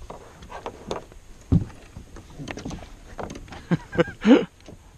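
Hollow knocks and bumps from a plastic sit-on-top kayak hull as a child shifts his feet and weight while standing in it, with one louder thump about a second and a half in.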